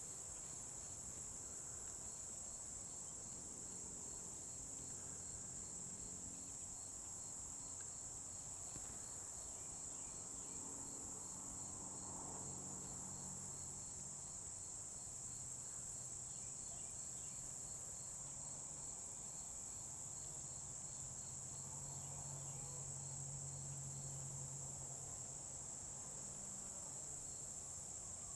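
A steady, high-pitched chorus of crickets and other insects, with a fainter chirp pulsing at an even rate underneath it.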